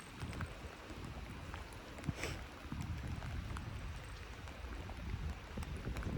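Wind rumbling on the microphone over a steady hiss of rain and lake water, with scattered light ticks and one short swish about two seconds in.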